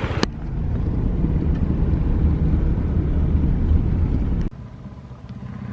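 A single sharp knock, then a steady low rumble of a car's engine and road noise inside the cabin, which stops abruptly about four and a half seconds in, leaving a quieter low hum.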